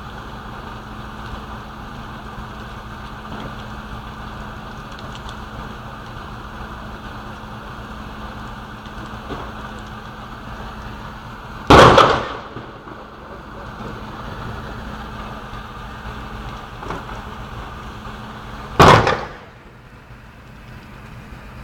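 Two loud explosion bangs about seven seconds apart, each sudden with a short echoing tail, over a steady low hum of background noise.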